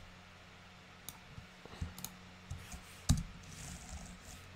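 Computer mouse and keyboard clicks: a scattering of short clicks, with one heavier key press about three seconds in. A faint steady low hum lies underneath.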